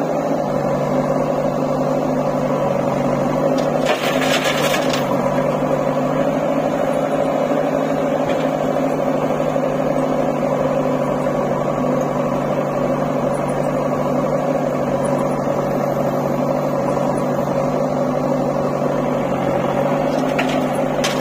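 Diesel engines of a JCB 3DX backhoe loader and a tractor running at a steady idle, an unchanging drone. A brief hiss about four seconds in.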